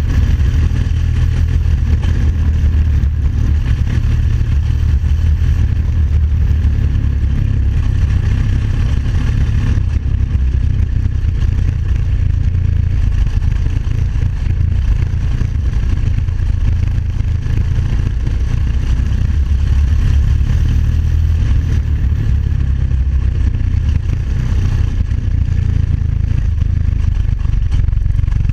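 Homemade buggy's 350cc engine running steadily while the buggy is driven, heard up close from the bare frame.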